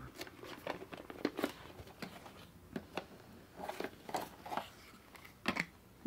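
Small cardboard product box being opened and handled: scattered light clicks, scrapes and rustles of the cardboard flaps and the contents inside.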